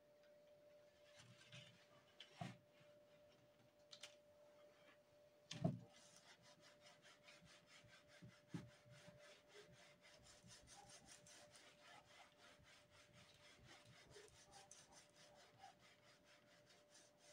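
Faint, quick, even scraping as a wax carving block is rubbed back and forth over a homemade wooden wax planer, shaving its face smooth. A few knocks come in the first six seconds, the loudest about six seconds in, and a faint steady hum runs underneath.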